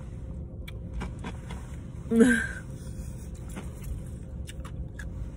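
Steady low rumble inside a car, with a few faint soft clicks. About two seconds in, a brief hummed vocal sound stands out as the loudest moment.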